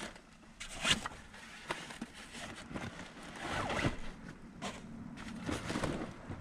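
A rucksack being handled and packed: irregular rustles and scrapes of fabric and gear, with a sharp one about a second in and longer scrapes in the middle and near the end.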